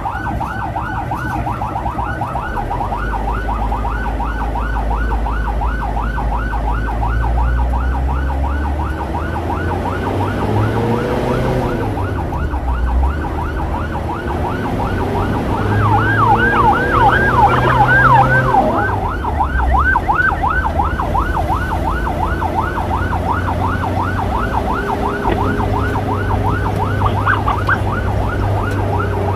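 An electronic yelp siren on an escort motorcycle, sweeping fast and continuously at about three rises a second, louder for a couple of seconds just past the middle. Beneath it, the motorcycle's engine revs up and falls back, most clearly about ten and sixteen seconds in.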